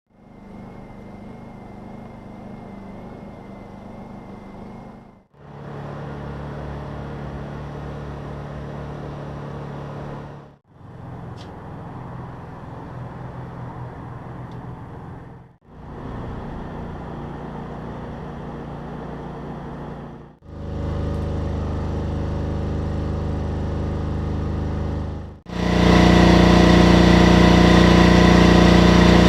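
Portable generators running steadily, one after another, in about six five-second recordings split by short silences; the generators compared are Honda EU2000 and EU3000 inverter generators and military MEP-831A and MEP-016D sets. Each recording has a different steady engine hum, and the last two are much louder, with a heavy low drone in the final one.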